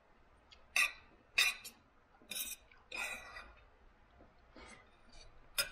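Knife and fork clinking and scraping on a dinner plate: a handful of short, irregular clinks, a couple of them drawn out into brief scrapes.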